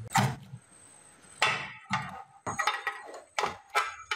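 A series of short metal clinks and knocks, about six in four seconds, as a rusty adjustable wrench, its binding wire and a pair of pliers are handled over a metal tray.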